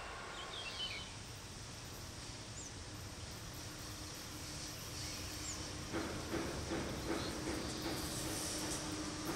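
A few short bird chirps over a quiet background; then about six seconds in, a ČD class 362 electric locomotive hauling passenger coaches comes close. Its wheels clack over the rail joints under a steady hum.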